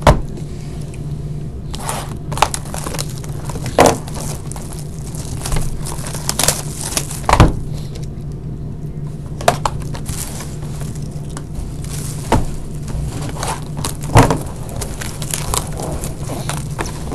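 Trading card boxes and packs being handled and opened: irregular crinkling, tearing and sharp clicks, over a steady low hum.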